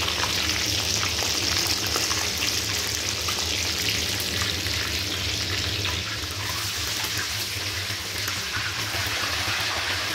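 Chicken pieces deep-frying in hot oil in a wok: a steady sizzle with fine crackling throughout.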